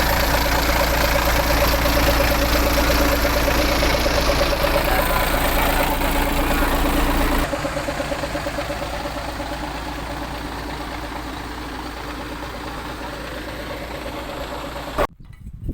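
Diesel engine of a Volvo FL10 truck running steadily. About halfway through it drops suddenly to a quieter, duller sound that fades gradually, and it cuts off near the end.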